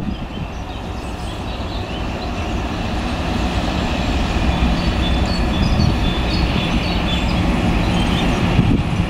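A British Rail Class 56 diesel locomotive's Ruston-Paxman 16-cylinder engine running with a steady low rumble, getting gradually louder.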